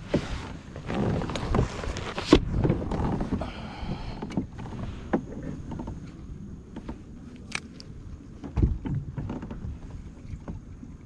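Knocks and bumps on a plastic fishing kayak's hull and deck, mixed with water sloshing, busiest in the first few seconds and then a few scattered knocks.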